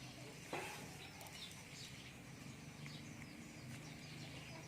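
Faint, scattered high chirps and animal calls, with a single click about half a second in.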